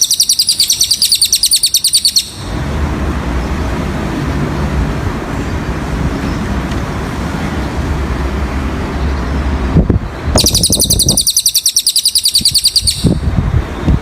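Cililin bird singing a rapid, high-pitched trill, twice: one trill ends about two seconds in and another runs from about ten to thirteen seconds in. A low rumbling background noise fills the gap between the trills.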